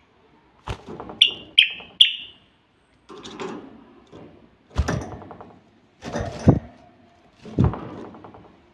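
A common bulbul in a wire cage gives three short, sharp chirps, each dropping slightly in pitch, about one to two seconds in. Around them come irregular knocks and thuds as the bird hops and flaps and the cage is bumped.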